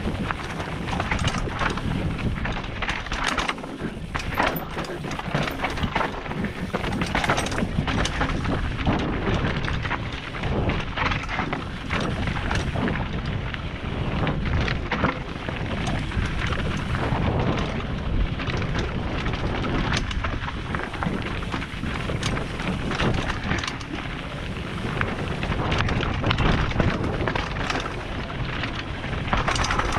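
Mountain bike riding fast down a rocky dirt trail: a steady rumble of tyres on gravel and wind on the camera microphone, with frequent knocks and rattles as the wheels hit stones.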